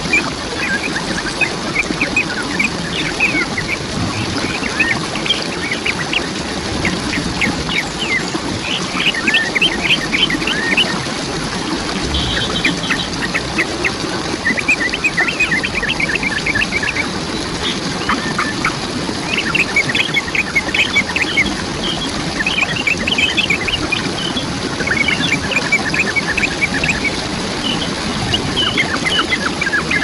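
Steady rush of falling water from a waterfall, with birds calling over it throughout in quick series of short, repeated notes.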